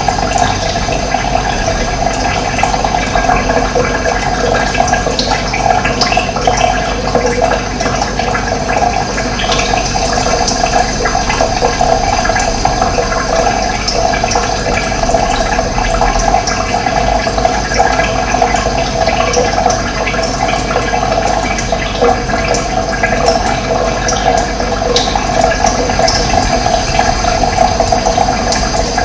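Running water flowing steadily in an even rushing wash, with a few faint, short high chirps from birds here and there.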